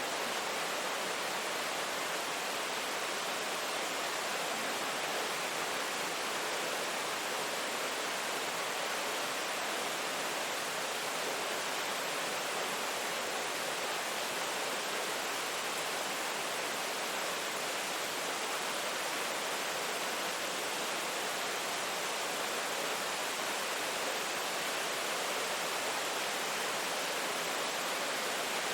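Steady rain falling: a dense, even hiss with no distinct drops or changes.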